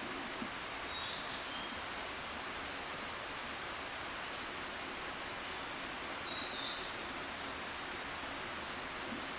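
Faint, distant ruddy kingfisher calls: short falling high notes near the start and again about six seconds in. They sit over a steady hiss of outdoor background noise.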